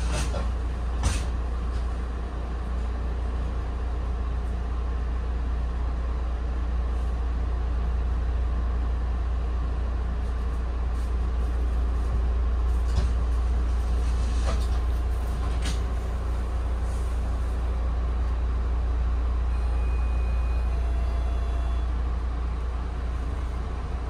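Interior of a Bombardier Comet IIM passenger coach running on the rails: a steady deep rumble with a few sharp clicks from the wheels and car body.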